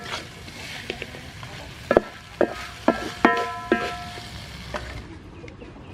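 Squid and tomato stir-fry sizzling in a metal pan while a spatula stirs it, knocking the pan about five times in quick succession in the middle, each knock leaving a brief metallic ring.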